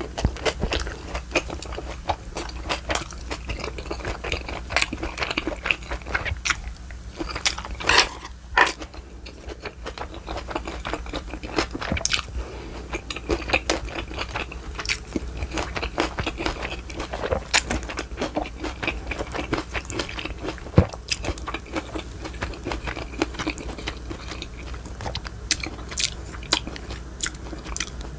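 A person chewing and biting food, with many short, sharp mouth clicks throughout.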